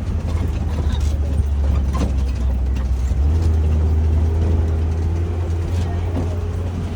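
Open-air safari ride truck driving along a rough track: a steady low engine and road rumble, with occasional knocks and rattles from the vehicle.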